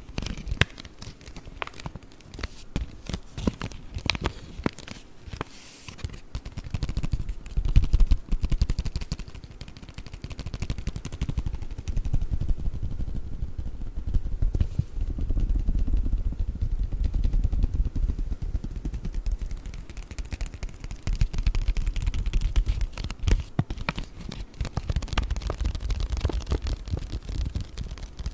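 Paper bag crinkling and rustling close to the microphone, a dense stream of small crackles, with heavier low handling noise in the second half.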